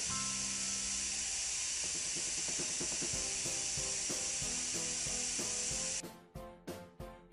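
Aerosol spray can of paint hissing steadily as its nozzle is held down, over background music. The hiss cuts off suddenly about six seconds in, leaving only the music.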